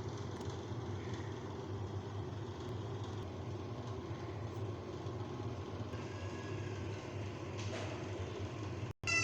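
A steady low mechanical hum with an even background noise, like a motor or fan running.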